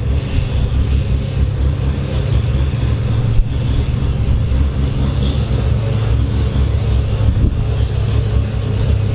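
John Deere 4240S tractor's diesel engine idling, a steady low rumble.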